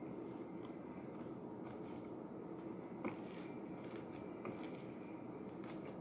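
Sticky slime being worked by hand, giving faint wet clicks and crackles, the clearest about halfway through, over a steady low background hum.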